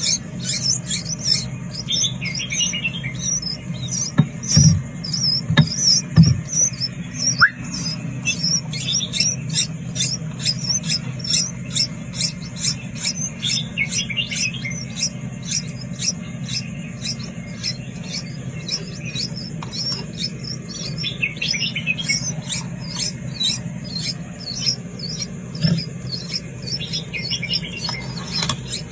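Nestling birds giving rapid, high-pitched begging chirps without a break, while they are hand-fed with tweezers. A steady low hum runs underneath, and a few soft knocks come about four to six seconds in.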